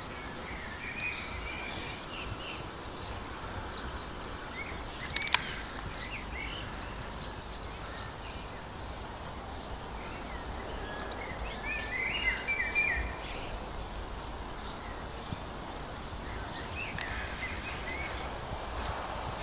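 Small birds chirping and singing on and off over a steady low rumble, with one sharp click about five seconds in.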